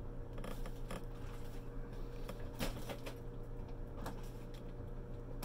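Quiet room tone with a steady low electrical hum and a few faint, scattered clicks.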